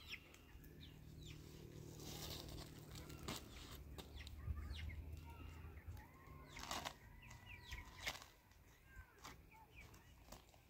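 Faint clucking of chickens with a few short calls, over soft rustles and crackles as thin, dry flatbread is lifted and stacked.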